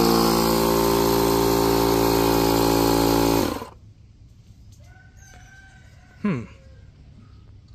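Milwaukee M12 cordless inflator's compressor running steadily, pumping air into a buried gas line for a pressure test, then cutting off suddenly about three and a half seconds in. About six seconds in, a brief pitched call ends in a sharp falling sweep.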